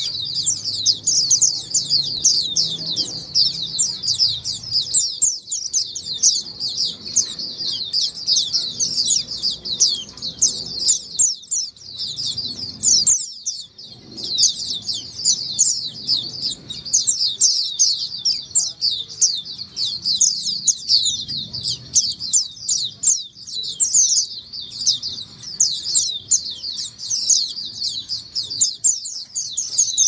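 A caged flock of white-eyes (pleci) chirping and twittering together in a dense, continuous chorus of rapid high notes.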